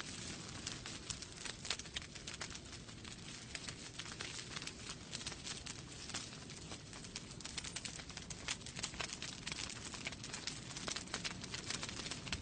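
Wood fire burning in a fireplace, crackling with many small irregular pops over a steady low rush of flame.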